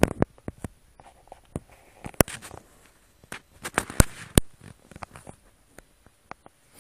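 A run of irregular sharp clicks and knocks, the loudest about four seconds in, over a faint steady high-pitched whine.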